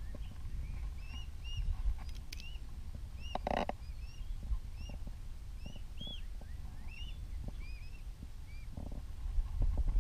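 Mute swan cygnets peeping: short, high, arched chirps, two or three a second, over a low rumble, with a short knock about three and a half seconds in.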